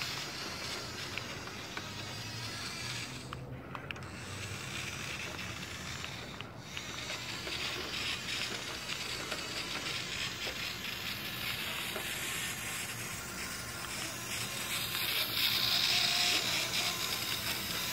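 Radio-controlled toy truck driving on gritty asphalt: a fine, crackling whir from its small motor, gears and tyres, getting louder near the end as it comes closer.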